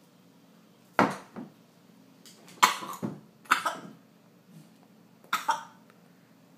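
A woman coughing and gagging in four short, sudden fits, reacting to a mouthful of blackstrap molasses.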